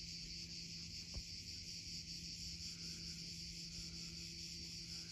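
Steady high-pitched chorus of insects shrilling, with a faint low hum underneath and a single faint click about a second in.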